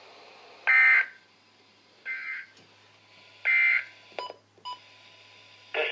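Emergency Alert System end-of-message code played through a Midland weather radio: three short bursts of buzzy SAME digital data tones about a second and a half apart, the middle burst quieter. Two brief clicks follow later on.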